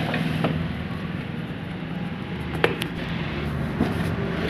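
A steady low mechanical hum like a running engine, with a few light metal clicks from a ring spanner working on a motorcycle carburettor's fittings.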